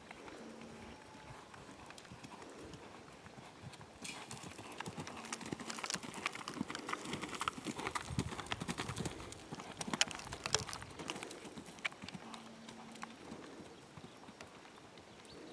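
A horse's hoofbeats at a canter on a soft arena surface. They grow louder as the horse passes close, about a third of the way in to past halfway, then fade as it moves away.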